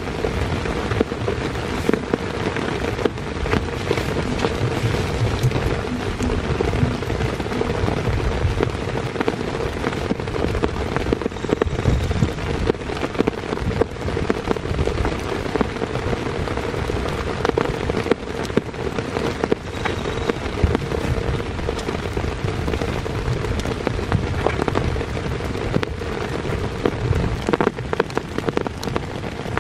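Heavy rain falling steadily, a dense, continuous patter of drops striking a surface.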